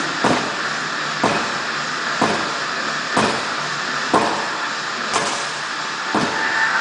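Sledgehammer strikes landing at an even pace of about one per second, seven blows in all, over a steady background hiss.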